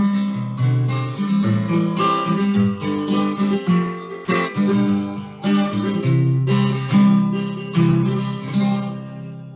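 Acoustic guitar played with strummed chords and picked notes. It ends on a chord left to ring and fade out near the end.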